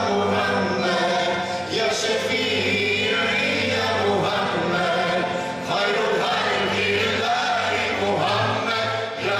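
A male solo voice sings a nasheed with a choir, with melismatic lines over a low, steady sustained drone. The singing pauses briefly a few times, between phrases.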